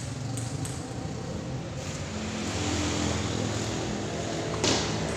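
A motor vehicle engine running steadily, growing louder about two seconds in, with a few faint clicks of a table tennis ball being played. A sharp, loud hit about four and a half seconds in.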